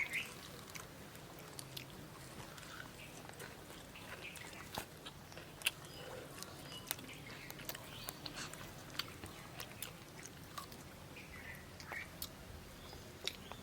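Someone biting and chewing crisp fried palm fritters, heard as scattered faint crunchy clicks.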